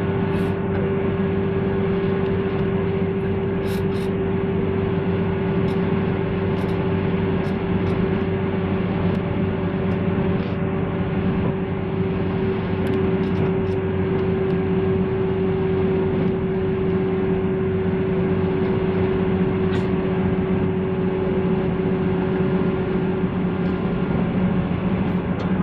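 JR 185-series electric train standing at a platform with its doors open, humming steadily from its onboard auxiliary equipment: a constant low drone with a steady mid-pitched tone that fades out near the end, and a few faint ticks.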